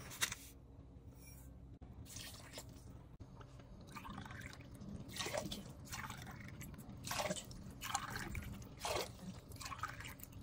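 Water poured from a drinking glass into a stainless steel pot of sugar, several separate glassfuls splashing in one after another.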